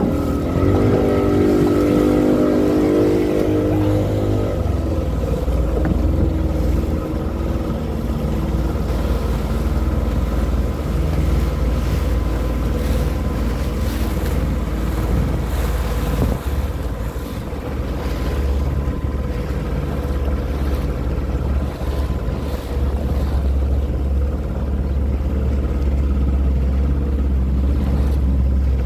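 Small pilot speedboat's engine running steadily with a low drone, over water splashing and wind on the microphone.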